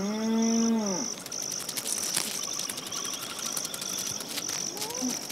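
A cow lowing once, a short moo in the first second, over the steady pulsing chirp of crickets.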